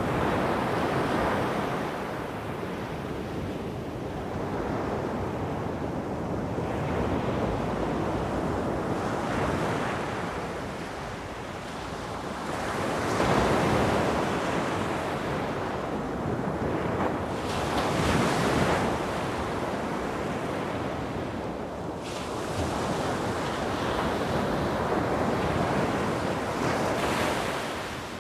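Sea waves washing onto a shore, a steady rush that swells and eases every few seconds as each wave comes in.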